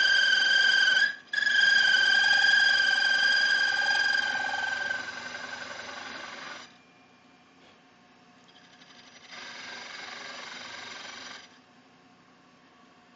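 Milling cutter cutting a 1-inch oil hole through a soft-metal VW super diff housing: a loud, high, steady squeal with a brief break about a second in, fading from about four seconds in and stopping near seven seconds. A quieter stretch of machine running without the squeal follows about ten seconds in.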